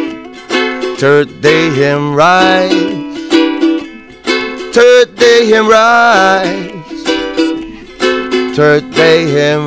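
Ukulele strummed and picked, an instrumental break in a song with repeated chord strokes and melody notes.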